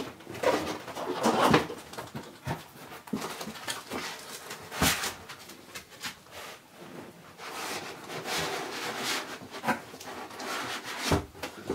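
Cardboard box and packaging handled while the contents are lifted out: irregular rustling and scraping, with a few sharp knocks, one about five seconds in and one near the end.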